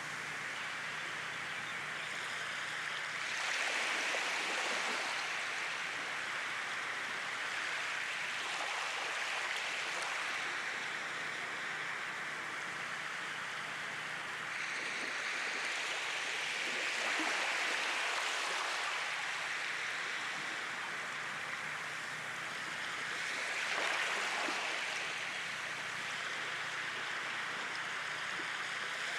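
Sea waves washing in, the surf swelling and falling back about every six or seven seconds.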